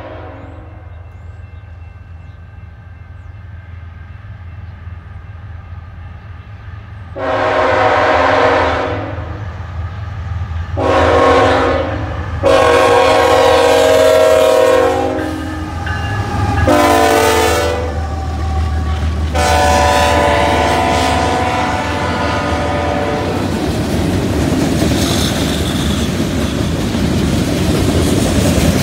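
CN freight train's diesel locomotives approaching with a steady drone, then the lead locomotive's air horn sounds five blasts: long, short, long, short, long. Loaded freight cars then rumble past with a clickety-clack of wheels on rail joints.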